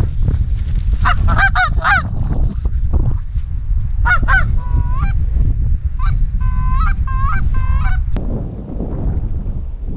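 Canada geese honking and clucking in three quick bursts of calls, about a second in, around four seconds and again from six to eight seconds, over steady wind rumble on the microphone. The honking stops abruptly a little after eight seconds.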